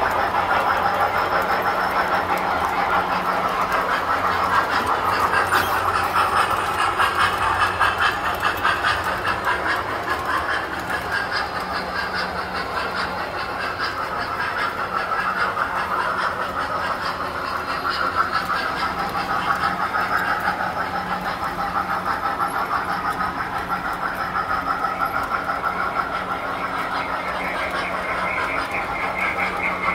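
Tinplate toy train running on metal track: a continuous rattle of fast, dense wheel clicks over a steady low hum.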